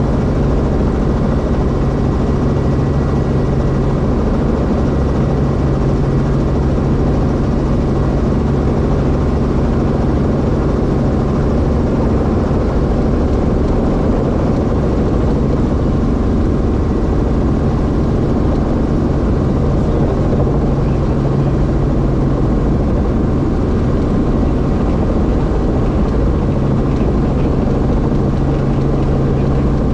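Light helicopter's engine and rotor running steadily while it hover-taxis low over the tarmac, heard from inside the cockpit as a constant drone with a steady low hum.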